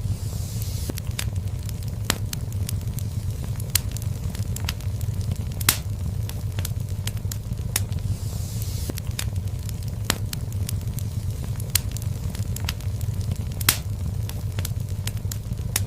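Wood fire burning in a fireplace, with a steady low rumble of flames under irregular sharp crackles and occasional louder pops, and a brief hiss now and then.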